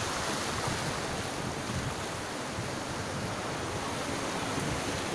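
Sea waves washing and foaming over rocks along the shoreline, a steady surf, with wind buffeting the microphone in gusts.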